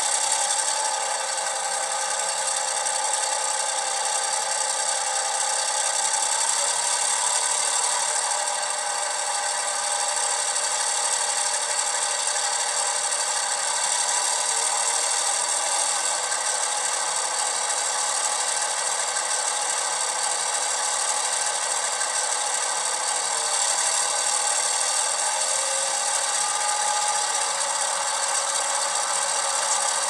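Sound decoder in an HO scale Atlas MP15DC model locomotive playing its diesel prime mover sound (an EMD 12-645) through two tiny sugar cube speakers. The engine runs steadily with a couple of slight shifts in pitch, and sounds thin, with no deep bass.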